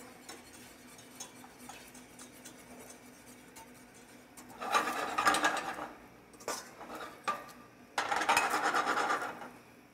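Wire whisk beating a sauce in a stainless steel saucepan, scraping and rattling against the metal in two brisk spells, about halfway through and near the end, with a few single clinks between. The whisking works cold roux into the hot liquid to thicken it.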